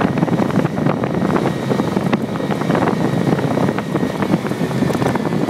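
Riding on a SYM Symply 50cc four-stroke moped: wind buffets the phone microphone taped to the wing mirror, over the moped's running engine.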